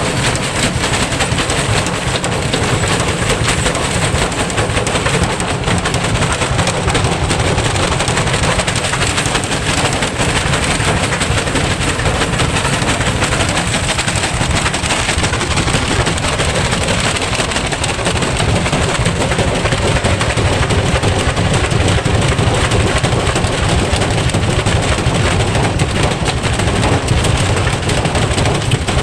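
Electrolux front-load washing machine self-destructing on a fast spin: the drum and cabinet bang and rattle in a loud, continuous, rapid clatter without letup.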